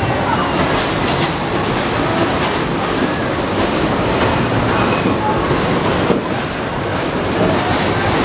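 Zipper carnival ride's machinery running while its cars are moved past the loading platform: a steady mechanical rumble with scattered clanks and short metallic squeaks.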